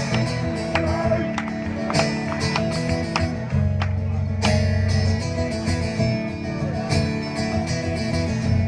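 Solo acoustic guitar played live through a concert PA, picked notes ringing over sustained low notes in a steady pattern.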